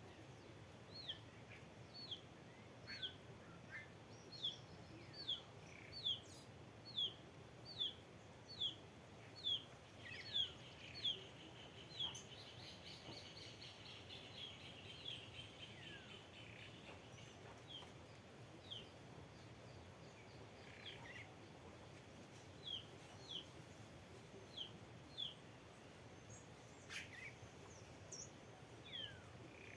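Wild birds calling: a run of about a dozen short, high, downward-slurred notes, roughly one a second, then a brief chattering, and scattered single notes later, over a faint steady outdoor background.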